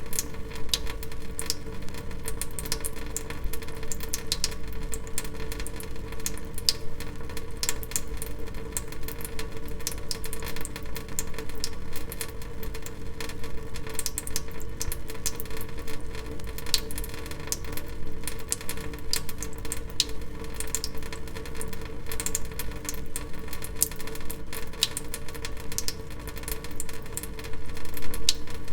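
Water dripping: many quick, irregular drip clicks, several a second, over a steady hum.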